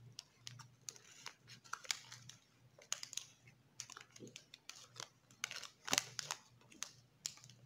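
Close-up chewing of a sticky caramel-and-almond chocolate: irregular wet mouth clicks and smacks.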